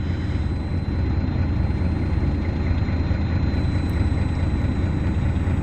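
A machine running steadily: a constant low rumble with a faint, thin high whine over it.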